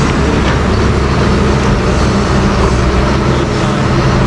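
Doosan wheeled excavator's diesel engine running steadily as the machine drives over a mound of soil and rubble.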